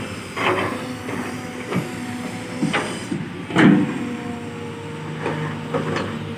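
Kobelco SK210-8 long-boom excavator's diesel engine running steadily while it digs soil, with about six sharp clanks and knocks from the bucket and arm at work. The loudest clank comes about three and a half seconds in.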